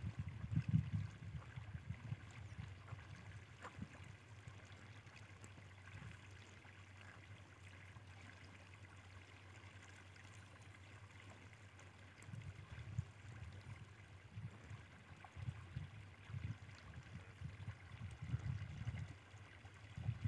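Gusts of wind buffeting the microphone in an open field, as an irregular low rumble in the first second or so and again through the second half, over faint outdoor background.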